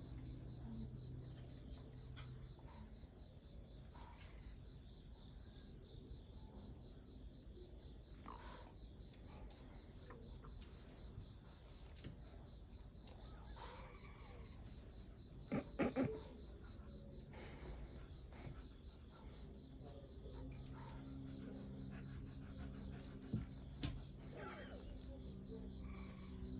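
Insects chirring outdoors: a steady, high-pitched, finely pulsing trill that never lets up. A few soft knocks come about sixteen seconds in.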